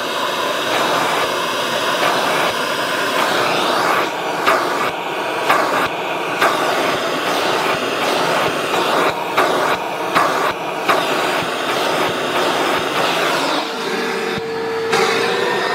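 Milwaukee M18 Packout wet/dry vacuum (0970-20) running with its hose pulling at a floor mat in a suction test, with irregular taps through the middle and a steady whistle near the end.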